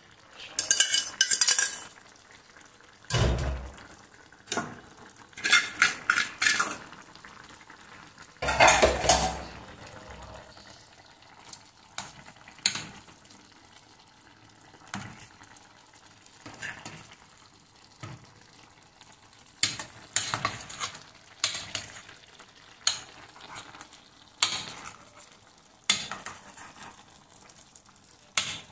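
A metal spoon clinking and scraping against a stainless steel pan as a fish stew is stirred, in irregular strokes. The stroke clusters are loudest in the first half, including two duller knocks about three and nine seconds in, over a faint simmer.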